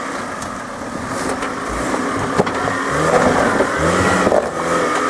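Off-road 4x4's engine revving under load as it works over rough terrain, the revs rising in surges in the second half, with a few sharp knocks.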